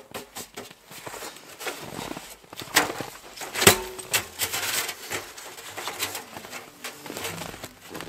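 Metal stovepipe from a hot-tent wood stove being taken down and handled: light scraping and knocking of the pipe sections, with two sharper knocks a little before halfway, the second a loud metallic clank that rings briefly.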